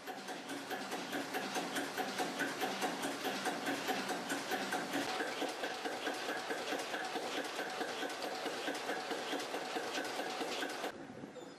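Three-cylinder Callesen 427 CO marine engine running with a rapid, even mechanical beat; the sound stops abruptly near the end.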